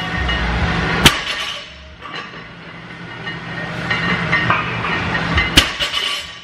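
A heavily loaded barbell is set down on a wooden lifting platform twice during a set of deadlifts, each touchdown a sharp, loud thud of the plates hitting the floor, about four and a half seconds apart. In between there is a steady noisy background.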